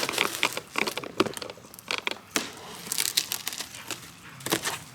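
Packaging of a new LED pool niche light being opened and handled by hand: irregular crinkling and crackling with sharp little snaps.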